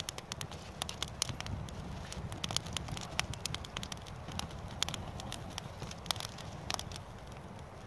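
Small wood campfire crackling: irregular sharp pops and snaps over a low steady rumble.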